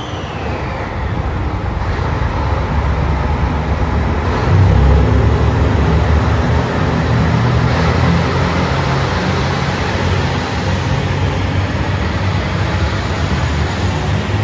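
JR Shikoku 2700 series diesel multiple unit pulling out of the station and passing close by, its diesel engines running under load as it sets off. The deep rumble grows louder about four seconds in and stays heavy as the cars go by.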